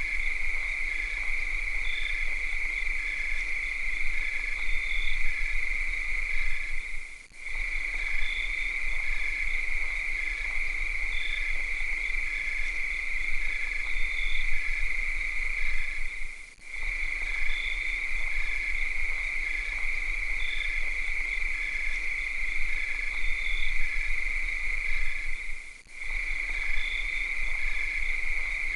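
Summer night chorus of cicadas: a steady, high-pitched buzzing with a fainter chirp repeating about once a second. The sound dips briefly three times, about nine seconds apart.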